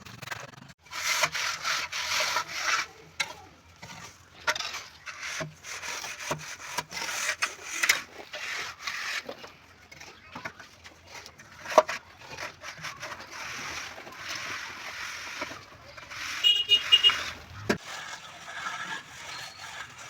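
Hand tool rubbing and scraping against a hard surface in spells of a few seconds, with scattered clicks and knocks in between.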